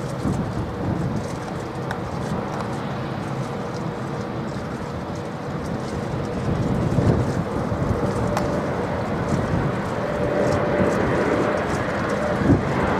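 Jet engines of an Embraer E-Jet on final approach with gear down, a steady rumble that grows louder as it nears. A steady whine joins in about eight seconds in.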